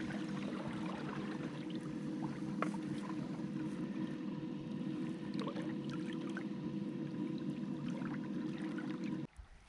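Boat's electric trolling motor running steadily in reverse at a low setting to slow the boat's drift, a constant hum with a faint whine, over light water sounds. It cuts off abruptly near the end.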